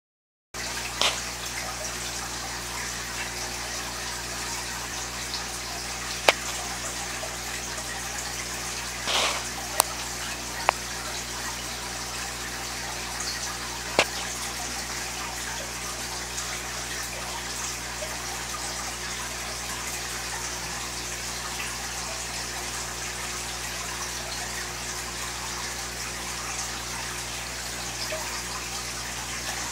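Steady rush and trickle of water from an aquarium filter, with a faint steady low hum underneath. A few brief sharp clicks break in, the clearest about six, ten and fourteen seconds in.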